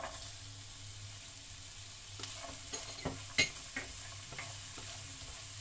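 Diced carrots dropping into a dark non-stick frying pan of garlic and onion frying in olive oil, sizzling steadily. From about two seconds in, wooden chopsticks stir the pan and click against it several times, with one sharp clack just past the middle, over a low steady hum.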